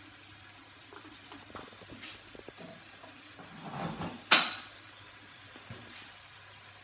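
Swordfish steaks frying quietly in olive oil in a nonstick pan, with a few light ticks, then one sharp, loud kitchen clack about four seconds in.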